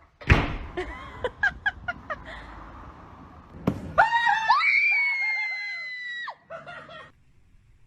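A sudden loud bang, then a few short squeals and a second bang. After that comes a long, high-pitched scream of about two seconds, and a shorter cry.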